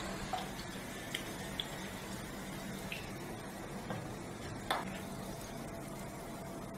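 Oil sizzling steadily in a shallow frying pan around veg roll tikkis, with a few light taps and clicks of a wooden spatula as the tikkis are lifted out; the sharpest knock comes about two-thirds of the way in.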